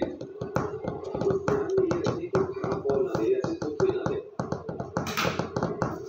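Rapid, irregular taps and clicks on a tabletop, several a second, from hands and a pet parakeet at play.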